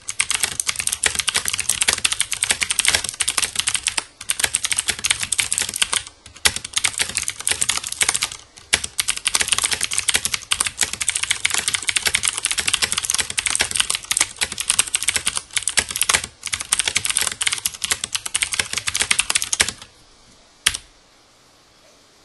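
Fast, continuous typing on a Filco Majestouch 2 mechanical keyboard with clicky Cherry MX Blue switches and doubleshot ABS keycaps: a dense run of sharp keystrokes broken by a few brief pauses. The typing stops near the end, followed by one last lone key click.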